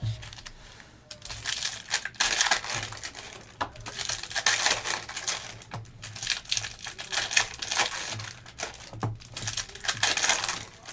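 Foil wrappers of Panini Optic football card packs crinkling and rustling as the packs are handled and shuffled, with irregular small clicks.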